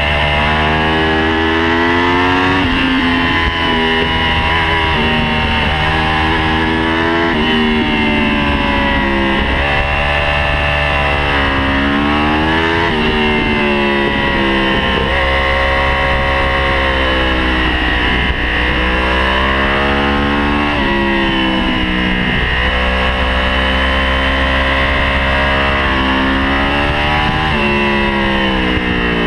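Inline-four sport bike engine heard from on board at speed, its pitch climbing under throttle and dropping back every few seconds as the rider accelerates, shifts and rolls off through a run of bends.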